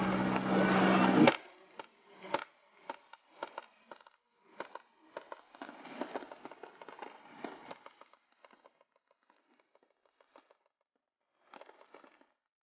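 A loud steady rumble with a low hum cuts off suddenly a little over a second in. Then come faint, uneven clops of a pair of horses' hooves on asphalt as a horse-drawn wagon crosses, thinning out after about eight seconds, with a last short patch near the end.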